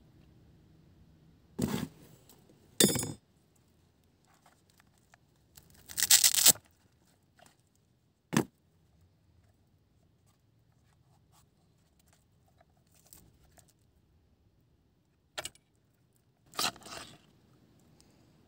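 Hard plastic survival-knife sheath being handled and its storage-compartment cover taken off: a string of separate clicks, scrapes and rattles, the loudest a rattling scrape about six seconds in.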